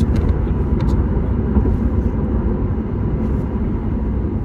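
Steady low road and engine rumble inside a moving car's cabin, with a few light clicks in the first second.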